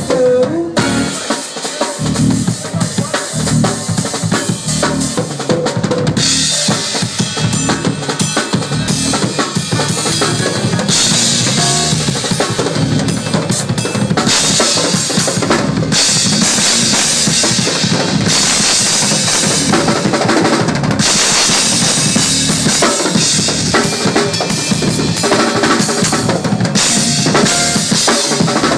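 Drum kit played live: snare, bass drum and rimshots, with long stretches of ringing cymbals coming and going.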